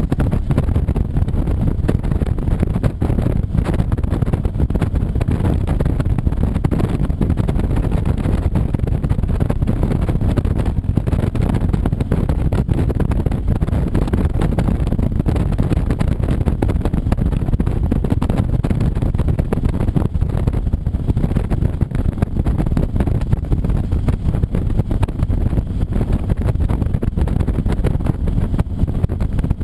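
Motorcycle on the move: steady engine and road noise mixed with heavy wind rumble on the microphone.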